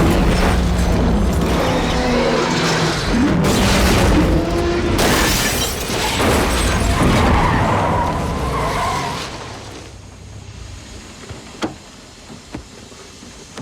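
Car crash in a film sound mix: engine and skidding tyres, then a loud crash with glass shattering about five seconds in. The din dies away over the last few seconds, leaving only a few faint clicks.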